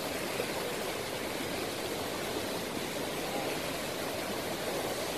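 Steady rush of muddy runoff water cascading down a rocky hillside and streaming across a road.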